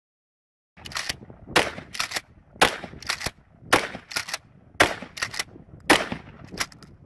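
Pump-action shotgun fired repeatedly, about six loud shots a little over a second apart. Sharper, quieter clacks come between the shots as the pump is worked.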